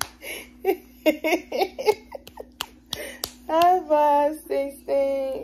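Hands slapping together in baby high fives, a few sharp claps in the first seconds. Then a baby's voice calls out in long drawn sounds, the first rising in pitch, over a faint steady hum.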